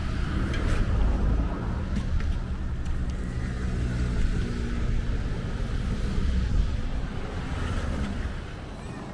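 Street traffic and road rumble on a ride through city streets, a steady low rumble that eases a little near the end.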